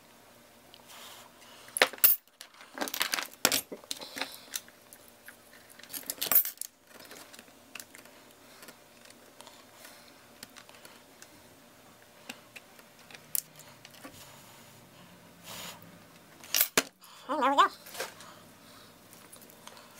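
Light metallic clicks and clinks from soldering a small brass plug terminal with a soldering gun: the gun's tip and the terminal knocking against each other and the board. The clinks come in a cluster about two to four seconds in, once more at about six seconds, and again near the end, over a faint steady hum.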